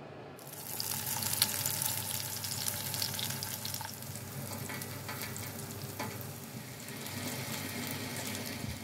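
Green pepper rings, onion and tomato slices frying in oil in a frying pan, then as an egg omelette: a steady sizzle with scattered crackles and pops, starting about half a second in.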